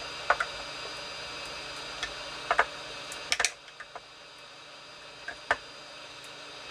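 Hot air tool blowing with a steady hiss and faint high whine, heating a glued plastic and resin top. Its sound drops about halfway through. A few sharp clicks and taps of hands handling the plastic come on top.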